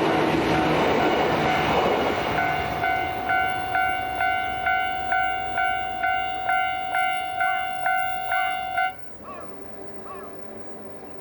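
A train passing over a Japanese level crossing, its rumble fading over the first two seconds or so; then the crossing's alarm bell dings evenly, about twice a second, and cuts off suddenly about nine seconds in as the barrier signal ends.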